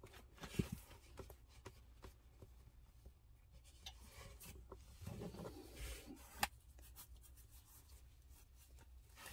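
Small comb being drawn through a puppy's fur: faint, scratchy brushing strokes with light rustling and a couple of short clicks.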